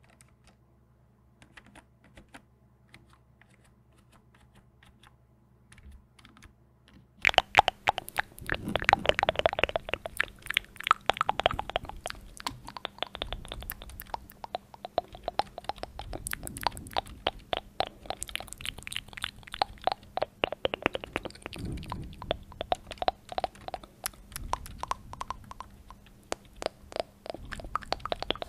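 Typing on a backlit computer keyboard close to the microphone. For the first several seconds there are only faint scattered key taps; then, about seven seconds in, a fast run of loud key clicks starts and goes on without a break.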